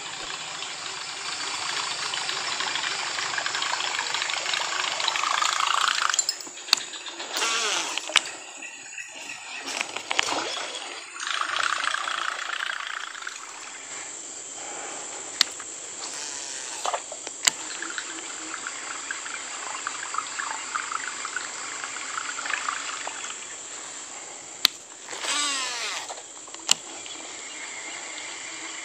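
A Shimano SLX baitcasting reel cast and wound in again and again, its winding making a rough whirr for several seconds at a time, with a spinning spool near the end and several sharp clicks in between. A steady, high insect drone goes on underneath throughout.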